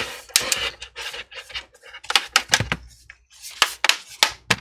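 Plastic clips of a laptop's bottom cover snapping into place as the panel is pressed down along its edges: a dozen or so sharp clicks at irregular intervals, with faint rubbing between them.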